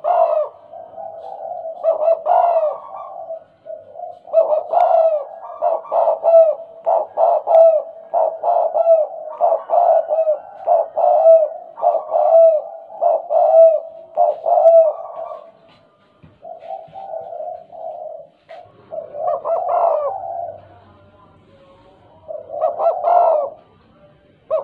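Spotted dove cooing in the stuttering 'gagap' style, a run of short coos at about two a second, broken by a few pauses and then picking up again near the end.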